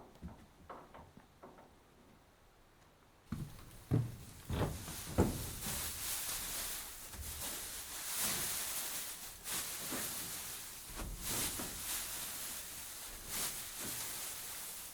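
Calves being loaded into a trailer: scattered knocks and clatter of hooves and gates, faint at first, then from about three seconds in a louder, busier clatter over a steady rushing noise.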